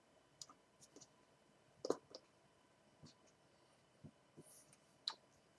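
Faint, irregular clicks and soft taps from a person signing, as hands and fingers knock against each other and the body, the sharpest about two seconds in.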